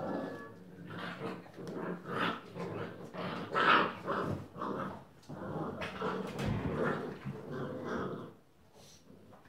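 Rhodesian Ridgeback puppies, six weeks old, growling as they play-fight, in irregular bursts that die away near the end.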